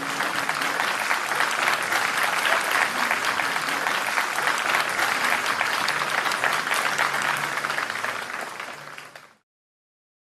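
Audience applauding, many hands clapping. It thins out near the end and then cuts off abruptly.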